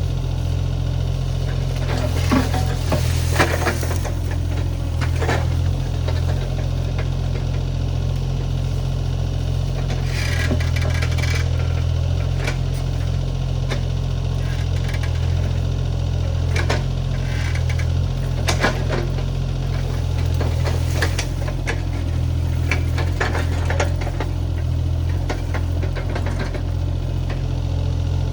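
Diesel engine of a compact earthmoving machine (mini excavator or skid steer) running steadily under work, with occasional clanks and knocks from the machine working.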